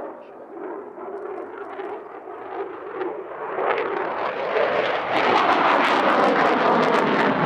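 Jet noise from a display F-16 Fighting Falcon's single engine, growing steadily louder as the fighter flies a hard outside turn, and turning crackly for the last couple of seconds.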